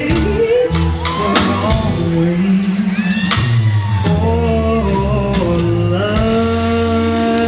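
Soul music with a singer over bass and drums; the voice slides between notes, and from about six seconds in the notes are held.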